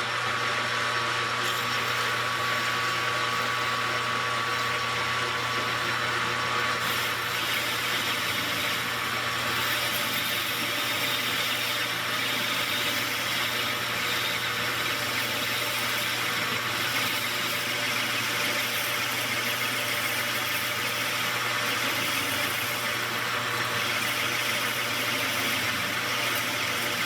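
King metal lathe running steadily under a cut on a freshly oiled workpiece: an even motor hum with a few steady tones over a constant hiss of cutting.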